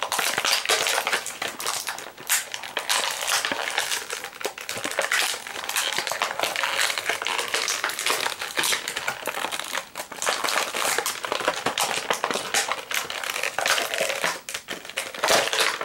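Clear plastic blister packaging being pried apart and crushed by hand: a dense, continuous crackling and crinkling of stiff plastic.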